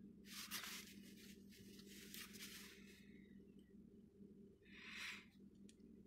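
Near silence: a Chery Tiggo 4's engine idling faintly, heard as a steady low hum inside the cabin. Two soft hissing rustles stand out, one lasting a couple of seconds near the start and a shorter one about five seconds in.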